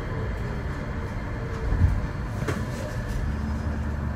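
Sengkang LRT rubber-tyred automated light rail car running along its guideway, heard inside the cabin: a steady low rumble with a single light click about midway.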